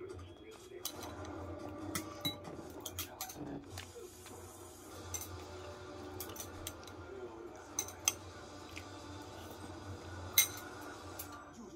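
Chopsticks clicking and clinking against a pot and a small bowl while eating noodles: many short, irregular clicks, with one sharper clink near the end.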